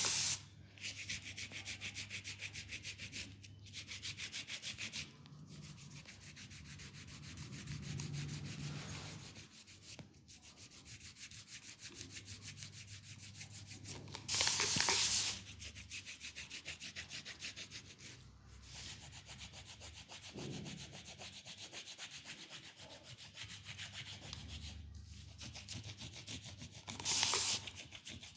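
Fast, closely spaced rubbing strokes on the skin of a leg being massaged, with two louder bursts of about a second, one about halfway through and one near the end.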